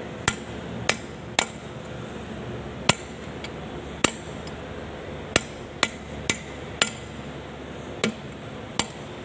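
A hammer striking a long steel punch held against a tractor's propeller shaft coupling: about eleven sharp metal-on-metal blows at uneven spacing, each with a short ring.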